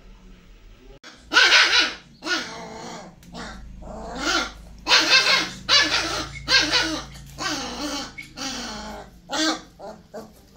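Kanni puppies play-fighting, barking and growling in a string of loud, rough barks starting about a second in.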